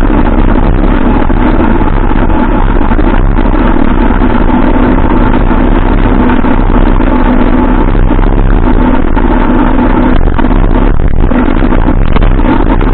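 Wind and road noise on an action camera's microphone while riding an e-bike along a paved road: a loud, steady rush with a steady hum through it.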